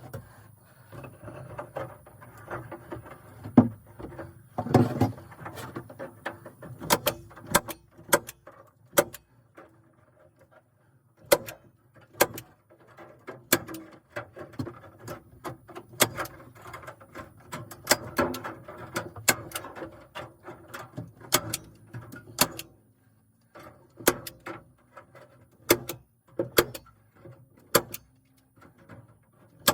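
Irregular sharp clicks, taps and knocks of hand work inside a small wooden structure, with rustling and handling noise between them and a short lull partway through.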